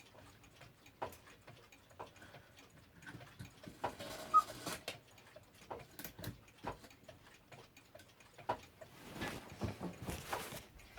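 A key-wound mechanical clock ticking, its ticks roughly half a second to a second apart. Handling clatter and knocks come in between, with a sharp knock about four seconds in the loudest sound.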